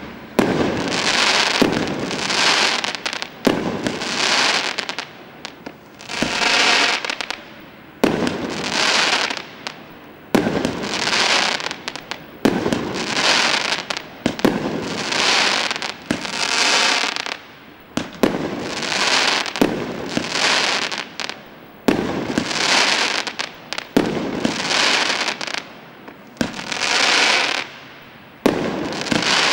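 A 19-shot consumer fireworks cake firing shot after shot, about one every two seconds. Each shot is a sharp bang followed by about a second of hissing noise as its stars burst.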